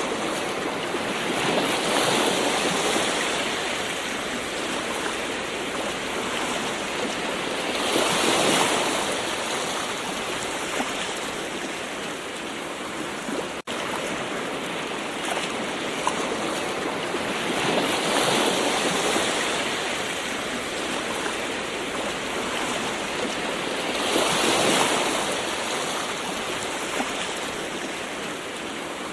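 Gentle ocean waves washing ashore over a constant hiss of surf, each wave swelling up and falling back every several seconds. A momentary gap cuts the sound about halfway through.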